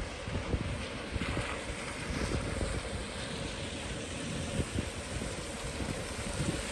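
Wind buffeting the microphone as an irregular low rumble over a steady outdoor hiss.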